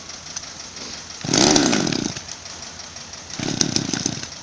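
Small two-stroke petrol chainsaw being pull-started: two pulls on the starter cord about two seconds apart, each giving a short burst of engine noise, the first the louder, and the engine does not keep running.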